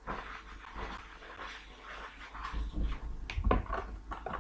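Small paper packets of vanilla powder rustling and crackling as they are torn open and handled, with a few sharp taps about three seconds in as they are emptied into a plastic mixing bowl.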